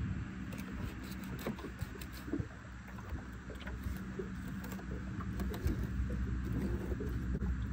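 Steady low hum of a boat engine idling, with scattered faint clicks and taps of a knife working a fish on a plastic cutting board.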